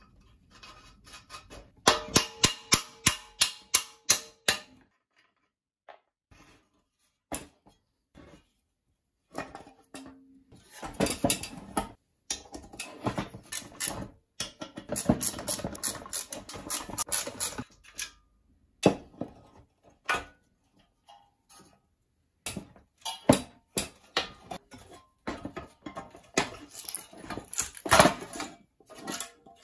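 Socket ratchet clicking in quick runs as nuts and bolts are undone on a rusty lawnmower deck and engine. Knocks, scrapes and clinks of metal tools and parts come in between.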